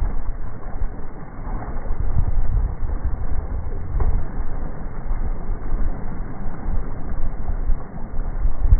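Deep, muffled rumble of wind and water noise at the side of a sportfishing boat, slowed down with the slow-motion footage.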